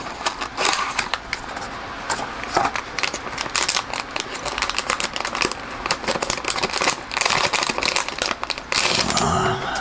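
Metallized anti-static bag crinkling and crackling as it is handled and unwrapped in the hands: an irregular run of sharp crinkles with no pauses.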